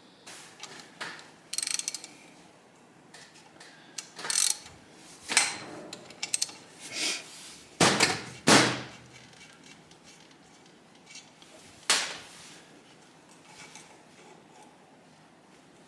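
Hand tools and metal engine parts being handled during a motorcycle engine teardown: scattered short metallic clicks and clanks at irregular intervals, the loudest a pair about eight seconds in and another about twelve seconds in.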